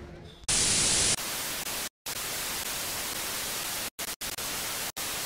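Television static hiss, as heard over a snowy test-pattern screen. A louder burst comes about half a second in and lasts about half a second. Then the hiss runs steadily, cutting out briefly several times.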